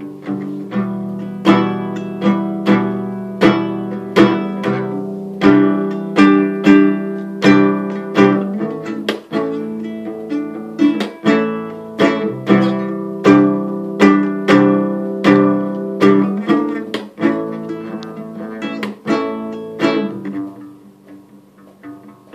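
Acoustic guitar playing an instrumental passage, a steady pattern of chords about one and a half strokes a second, dying down over the last couple of seconds.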